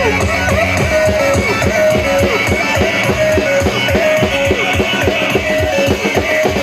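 Live music: a drum kit played with rapid, dense strokes, with a guitar playing along.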